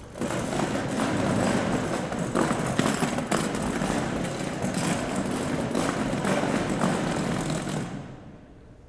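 Steel legs of a chair scraping and grinding across a stage floor as it is pushed along, a continuous rough, crackling scrape that dies away near the end as the chair comes to rest.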